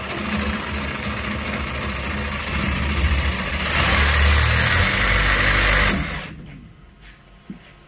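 Milwaukee Super Sawzall reciprocating saw with a carbide metal blade cutting into a rusted black-iron pipe fitting. The saw runs steadily, gets louder and harsher about four seconds in, then stops about six seconds in.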